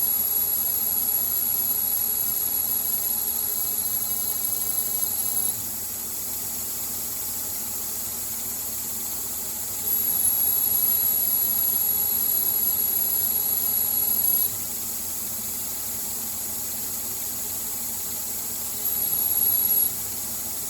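CNC lathe taking roughing passes in D2 tool steel with a carbide grooving tool: a thin, high-pitched squeal sounds during each cut. It runs for the first five seconds or so, returns for about four seconds midway, and comes back briefly near the end. Each time it stops abruptly as the tool backs out. A steady hiss of spray-mist coolant runs underneath.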